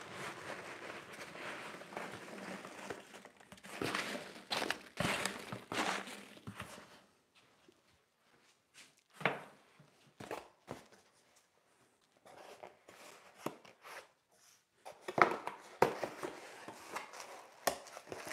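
Cardboard shipping boxes and their packing material rustling and crinkling as they are unpacked by hand, with a few sharp knocks of items and boxes being set down on the wooden bench. The rustling stops about halfway through and picks up again near the end.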